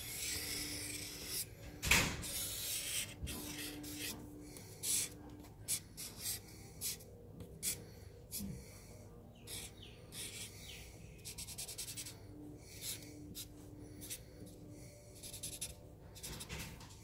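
Artline 70 permanent marker rubbing and scratching across printer paper in many short drawing strokes. A sharp knock about two seconds in is the loudest sound.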